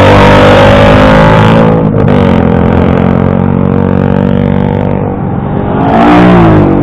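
Motorcycles ride past close by one after another, each engine's pitch dropping as it goes by: one right at the start, another about two seconds in, and a louder pass near the end. Engines run steadily underneath.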